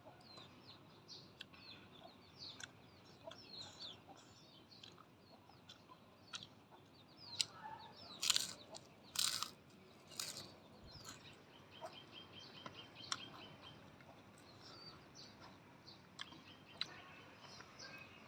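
Birds chirping over and over, with chickens clucking among them. About eight to ten seconds in come three loud, sharp crunches, and a little later a short quick trill.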